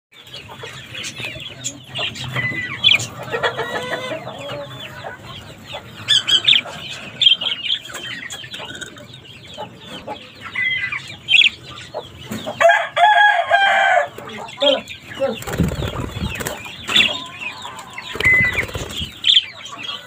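A flock of budgerigars chattering: a busy stream of quick chirps and warbles. Around the middle comes a louder, held squawk. Late on there are two low rumbles.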